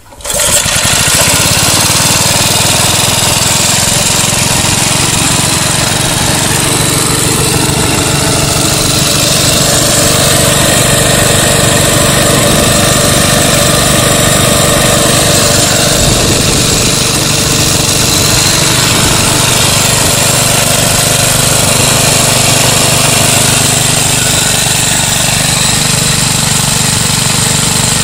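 A 3 hp gasoline engine starts less than half a second in and runs steadily. It belt-drives a 1963 Quincy 325 two-stage reciprocating air compressor, spinning with its cylinders held unloaded so that it pumps no air.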